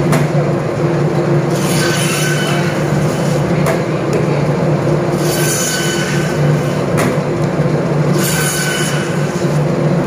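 Electric meat band saw running with a steady motor hum, its blade rasping and screeching three times as it is pushed through a bone-in goat leg to cut steaks.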